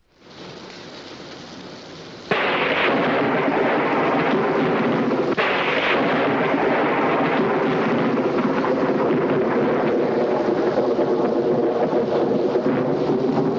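Thunderstorm: a steady stormy hiss, then two sharp thunderclaps about two and five seconds in, each followed by loud, continuous rolling thunder.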